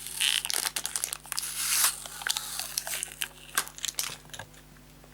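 Packaging crinkling and rustling as it is pulled open by hand, busiest in the first two seconds, then thinning to scattered small clicks and taps.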